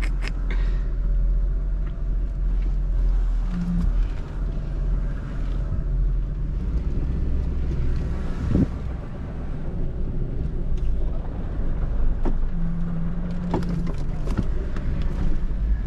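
Vehicle engine and road rumble while driving, steady and low, with a few light knocks and rattles.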